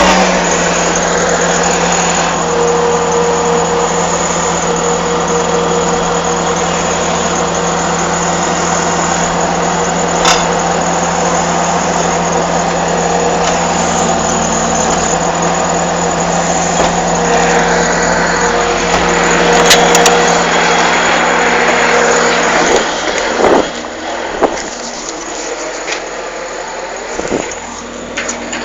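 Excavator's diesel engine running steadily, then dropping away about three-quarters of the way through.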